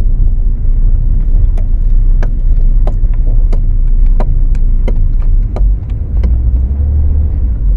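A 2012 Ford Focus being driven, with a steady low road and engine rumble and irregular sharp clicks or creaks, about two or three a second. These are the chassis noise reported by the owner, whose source is still being tracked down; it resembles a worn shock absorber but the mechanic doubts that it is one.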